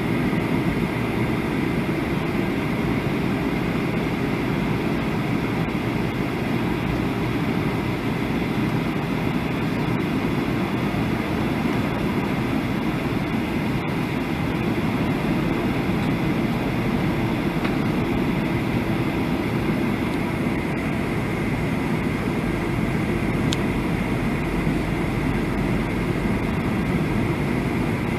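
Steady cabin noise inside a Boeing 737 airliner on approach: the rumble of the engines and rushing air, unchanging, with a faint steady high whine above it.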